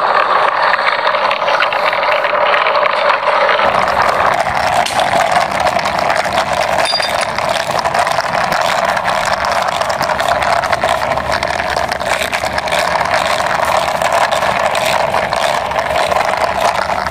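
Plastic toy dirt bike rolling steadily along a concrete wall top, its wheels giving an unbroken rattling, rumbling noise that grows deeper about four seconds in.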